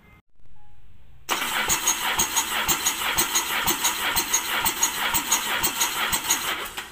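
Sea-Doo RXT-X 300 RS three-cylinder engine being cranked by its electric starter for a compression test, a fast, even chugging of compression strokes. The cranking starts a little over a second in after a weaker lead-in and stops near the end.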